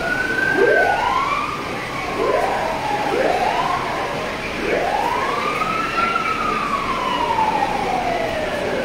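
Emergency vehicle sirens wailing, several overlapping, each sweeping up quickly and then sliding slowly down in pitch.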